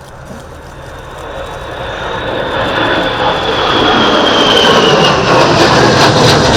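Jet engines of an EAV-8B Harrier II and an F-35B Lightning II flying past in formation. The noise grows much louder over the first few seconds and then holds loud, with a high turbine whine that slowly falls in pitch as they pass.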